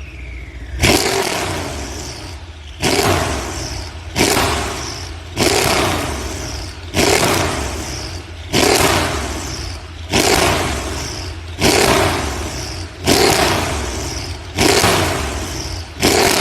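Mercedes-Benz CLS63 AMG V8 exhaust being revved in repeated throttle blips, about one every one and a half seconds: each rev jumps up sharply, then falls back as the engine drops toward idle before the next blip.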